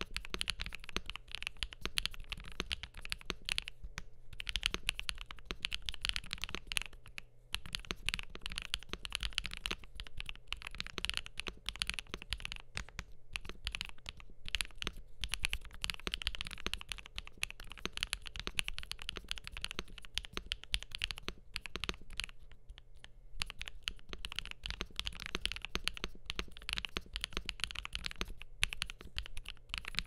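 Steady fast typing on a CIDOO QK61 mechanical keyboard with lubed and filmed CIDOO Pearl White switches, double-shot PBT keycaps, a polycarbonate plate and case foam: a dense run of key clacks broken by a few short pauses.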